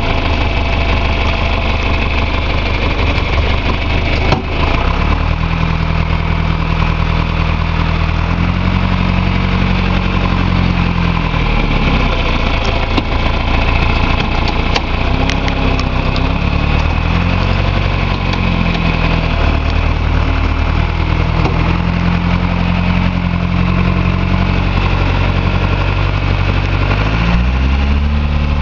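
John Deere 2355 tractor's diesel engine running under way on a test drive after a clutch replacement, heard from inside the cab, its engine speed rising and falling several times. A single knock sounds about four seconds in.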